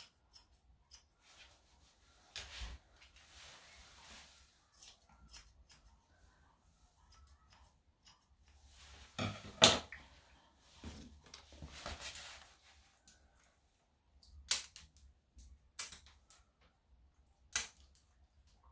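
Irregular sharp snips and clicks from hand grooming tools working on a dog, with soft rustling in between. The loudest sound is a brief rustle and thump about ten seconds in.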